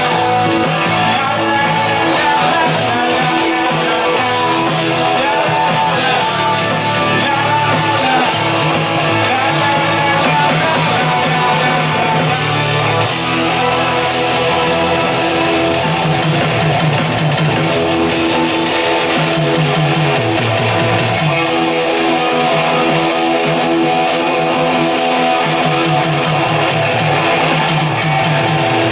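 Live rock band playing at full volume through a PA, with electric guitar to the fore over bass and drums.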